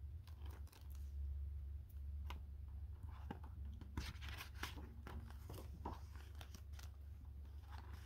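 Paper page of a picture book rustling and crinkling as it is handled and turned, in scattered soft rustles and clicks over a low steady hum.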